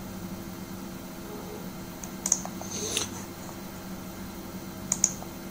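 Computer clicks: two quick pairs of sharp clicks, about two seconds in and near the end, with a brief rustle between them, over a faint steady electrical hum.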